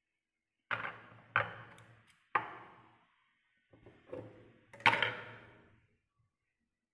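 Six sharp snaps and knocks, each with a short ringing tail, the loudest near the end: scissors snipping and being handled at an industrial sewing machine while trimming a pocket.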